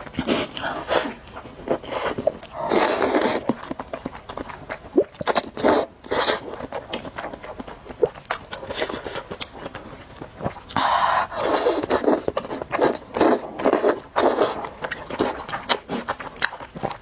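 Close-miked eating of spicy noodles: irregular bouts of slurping and chewing, with many sharp clicks in between.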